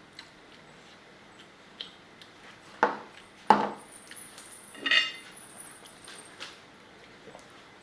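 Plates and cutlery being handled: scattered small clicks, two sharper knocks about three seconds in, and a clink with a brief ringing tone about five seconds in.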